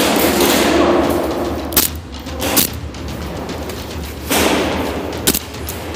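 Airsoft guns firing a few single shots, sharp cracks about two seconds in, again shortly after, and once more near the end, over the rustle and scuffle of players moving.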